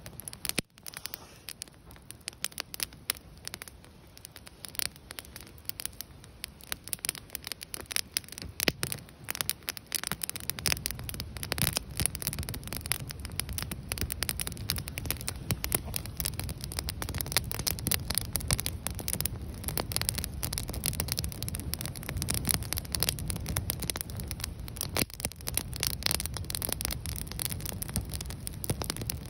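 Wood campfire of stacked branches and logs burning, crackling with many sharp pops and snaps. About ten seconds in, a steady low rumble sets in under the crackling.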